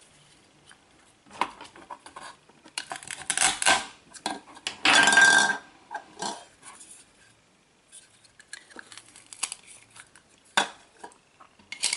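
Plastic toy knife clicking and tapping on a toy vegetable, with two rasping rips about 3 and 5 seconds in as the Velcro-joined pieces are pulled apart.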